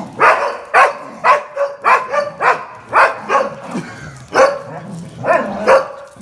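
Dogs barking in play while tugging over a towel: a quick run of short, sharp barks, about two a second, with a brief pause partway through.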